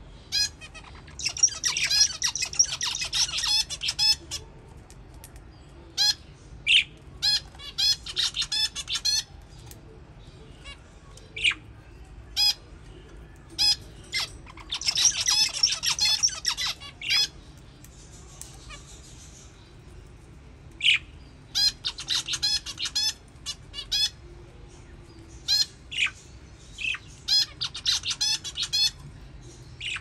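Budgerigars chirping and chattering in several bursts of rapid, high chirps, with single sharp calls in between.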